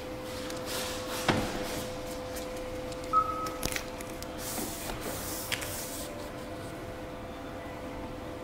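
Hand work on a car door window during a tint install: a few light clicks and knocks, and two short bursts of hiss from spraying slip solution on the glass, over a steady hum.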